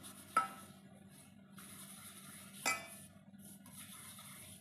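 A small brass bowl being scrubbed by hand in dry rice flour over a stainless steel basin: faint rubbing, with two sharp metallic clinks that ring briefly, one near the start and one about two and a half seconds in.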